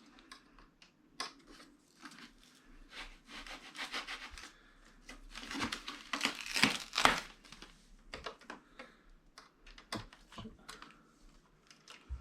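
Hands handling the printer's packaging and parts: scattered rustling and scraping with small clicks and knocks, loudest about six to seven seconds in.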